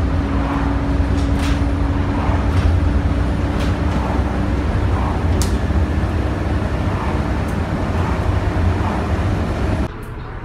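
Cabin noise inside a moving bus: a steady low rumble of engine and road, with a steady hum that fades out about halfway and a few light rattles. The rumble drops off abruptly near the end.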